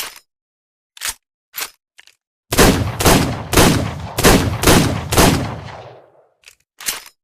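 Revolver sound effect: a few sharp clicks, then six loud shots about two a second, each ringing on into the next and fading out, then two more clicks.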